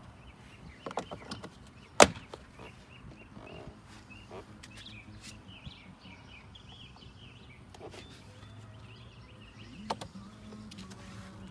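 A few sharp clicks and knocks from work on a truck door, the loudest about two seconds in and another near the end, over a low steady background with faint bird chirps.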